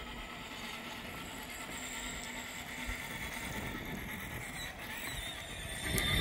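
A 12-volt battery-powered ride-on toy tractor running: a thin, high electric-motor whine over the rolling of its wheels. It is faint at first and grows louder near the end as it comes closer.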